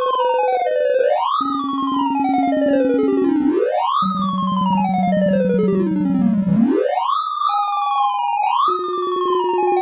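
Synthesized sorting-algorithm tones from gnome sort, each pitch standing for an array value as it is compared. The cycle repeats about every 2 to 3 seconds: a slow falling run of beeping tones over a held steady tone, as an element is swapped back down the sorted part, then a quick rising sweep as the sort steps forward again.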